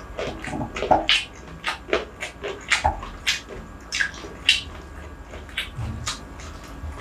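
Close-miked eating sounds: wet chewing and lip smacks of a mouthful of rice, coming as quick irregular clicks several times a second.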